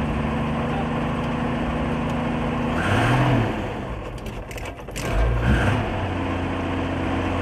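An old motorhome's petrol engine idling, revved briefly twice about three and five seconds in, then settling back to idle. It is a test run after the fuel pump and carburettor were fitted with new gaskets.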